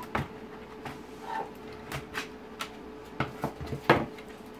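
The plastic casing of an Audi TT Mk1 instrument cluster clicking and knocking as it is pulled apart to release the back cover. It is a string of sharp clicks and knocks, with the loudest snap about four seconds in as the housing comes free.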